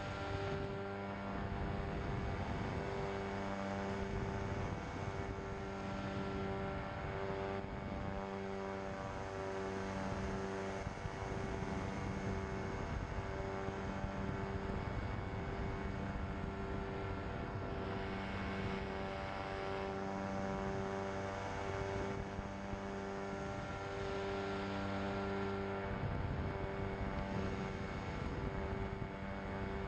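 Pterodactyl Ascender II ultralight's engine and propeller running steadily in cruise flight, heard from on board. The drone holds an even pitch, with a slow regular pulsing in its lower tones.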